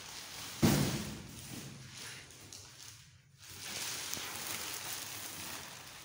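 Cardboard packing carton being pulled off a washing machine: one sharp thump about half a second in, then rustling of cardboard and plastic wrap.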